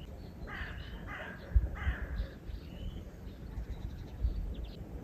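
A bird calling three times in quick succession in the first half, with faint chirps of small birds around it and a low rumble underneath.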